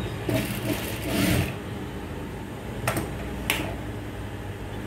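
Sewing machine running steadily as a seam is stitched on cotton pant fabric. Cloth rustles about a second in, and there are two sharp clicks around three seconds in.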